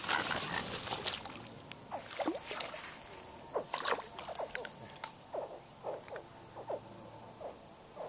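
An anhinga takes off from the water's edge with a burst of wing flaps. Then comes a series of a dozen or so short chirping calls from a juvenile alligator in the duckweed, some rising and some falling in pitch.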